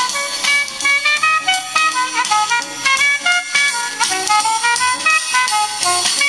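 Instrumental jazz with a horn melody and drums, played back from cassette tape on a Sansui SC-1110 stereo cassette deck.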